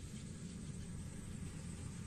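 Distant rice combine harvester running steadily while harvesting, a low, even engine rumble with a faint high hiss above it.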